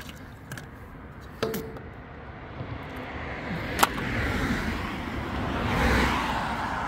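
A car passing on the road, its tyre and engine noise swelling to its loudest about six seconds in. A few sharp clicks and knocks come before it in the first four seconds.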